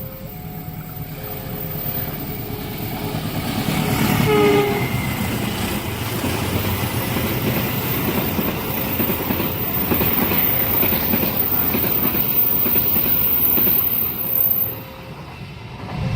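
A level-crossing alarm sounds two alternating tones at the start. A train horn gives a short blast about four seconds in. Then a train passes at speed, its wheels clattering over the rail joints, until the sound drops away suddenly near the end.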